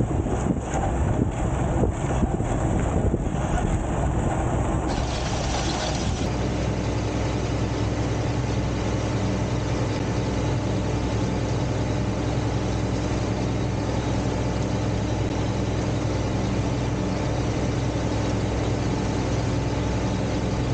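Farm tractor pulling a planter through a field: a steady machinery drone. Wind buffets the microphone for the first five or six seconds, then dies away, leaving an even engine hum.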